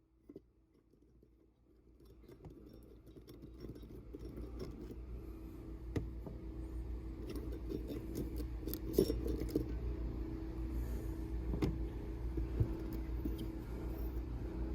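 Small metal carburetor parts and a wrench clinking and scraping as a Carter BBD carburetor is taken apart, with scattered sharp taps over a low steady hum. The sound starts about two seconds in and grows louder.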